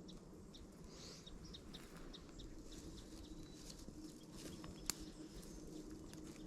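Faint bird calls: short chirps repeating about twice a second over a faint steady low hum, with one sharp click about five seconds in.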